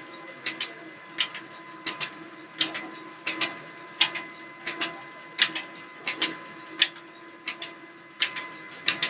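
Mustard oil expeller running: a steady mechanical hum under a regular clacking, sharp knocks, often in pairs, coming about every 0.7 s.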